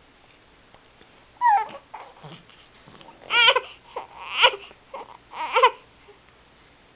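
Baby fussing with about five short, high-pitched whimpering cries spread over a few seconds.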